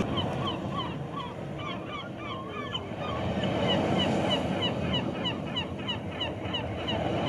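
Many short bird calls, several every second, over a steady wash of noise like surf.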